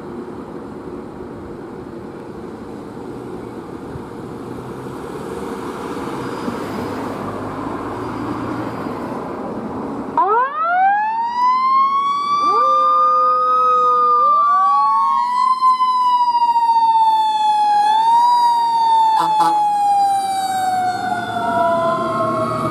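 Road and vehicle noise, then about ten seconds in a fire department emergency vehicle siren starts. It winds up in pitch and then slowly falls, with further wind-ups overlapping it.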